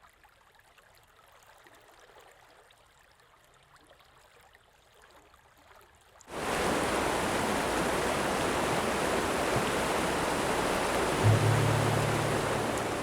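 Rushing water, a loud steady roar that cuts in suddenly about six seconds in after a faint start. A low steady hum joins near the end.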